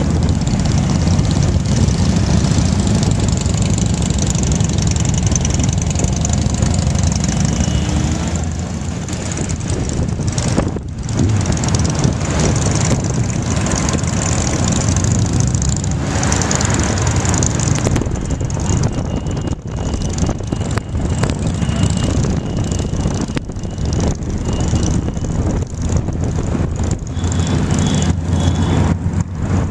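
Motorcycle engine running steadily under way, heard from the pillion seat amid the other motorcycles of a group ride, with wind noise over the microphone.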